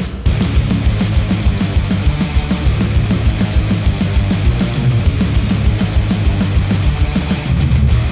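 Heavy rock music with a fast, steady drum beat, played back through studio headphones and picked up by microphones.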